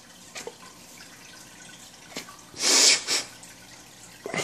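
A faint steady trickle of aquarium water, broken about two and a half seconds in by a short, sharp burst of breath from a person, then a smaller puff just after.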